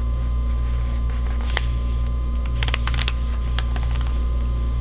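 Steady low electrical hum, with a few brief soft rustles and taps of a paper sheet being folded and pressed flat by hand, clustered around the middle.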